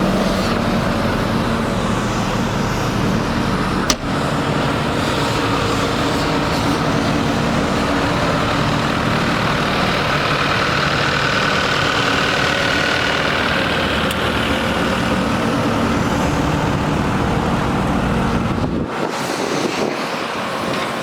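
New Holland L234 skid steer's diesel engine running steadily, with one sharp click about four seconds in.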